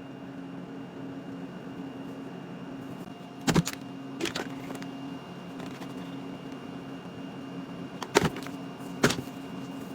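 Four sharp taps or clicks from handling items and packaging, spaced a few seconds apart, over a steady low hum.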